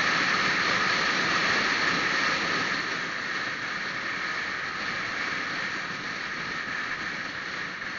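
Steady rushing wind and road noise from a vehicle on the move, a hiss without a clear engine note. It eases slightly about three seconds in.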